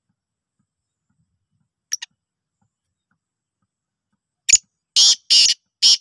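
Black francolin calling: a loud series of short, harsh, grating notes that begins about four and a half seconds in, four of them within a second and a half. A short faint double click comes earlier, near two seconds.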